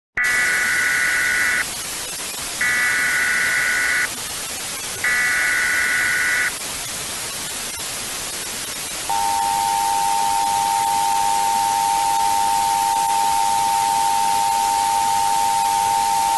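Emergency Alert System tones over steady static hiss. Three short bursts of the SAME digital header data tones come first. From about nine seconds in, the steady two-tone EAS attention signal sounds continuously.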